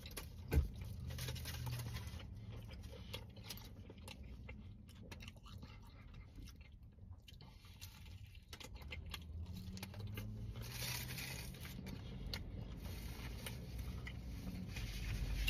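A person biting into and chewing a beef taco: soft, scattered crunching and mouth clicks, with one sharp click about half a second in.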